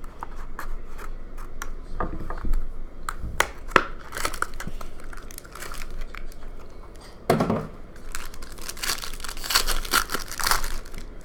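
Trading-card pack wrapper being torn open and crinkled by hand, with many small crackles and clicks. The crinkling grows denser and louder over the last few seconds.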